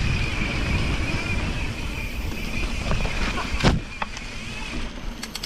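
Santa Cruz Megatower full-suspension mountain bike rolling fast down a dirt singletrack. The tyres rumble over the ground and there is wind noise, with a faint steady high whine. About three and a half seconds in there is a sharp knock, and after it the riding noise is quieter.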